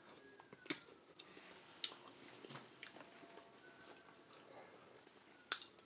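Close-up mouth sounds of a person eating seafood boil: quiet chewing with several sharp lip smacks and clicks, the loudest about a second in and near the end.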